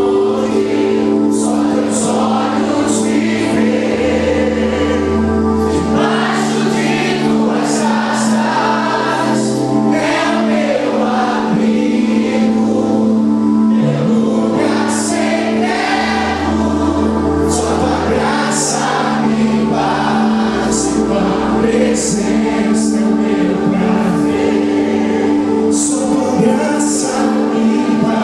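Live Christian worship music: several voices singing over held chords, with a bass guitar moving to a new note every couple of seconds and light cymbal strokes.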